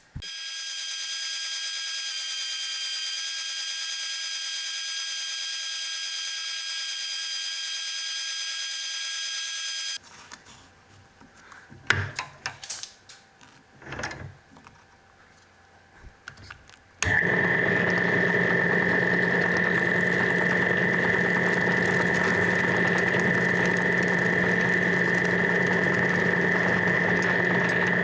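An electric power tool runs steadily for about ten seconds and stops. A few knocks of wood follow, then a power tool starts and runs steadily with a high whine until the end.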